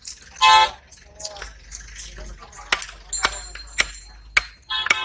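Sharp knocks of a knife chopping fish on a wooden block, several strikes in the middle of the stretch, with faint clinks. A short, loud horn-like blast comes about half a second in.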